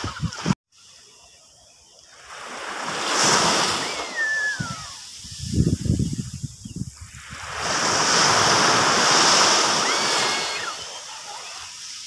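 Small sea waves breaking and washing up a sandy beach, the surf swelling twice and drawing back in between.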